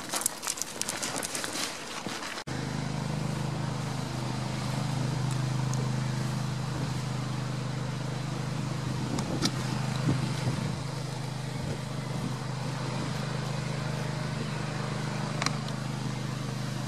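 Footsteps and hooves on gravel for the first couple of seconds, then an abrupt switch to the steady low hum of an engine running without change, with a few faint clicks over it.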